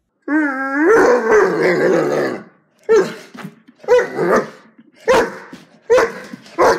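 A Doberman vocalizing: one long drawn-out howl of about two seconds, then five short barks about a second apart.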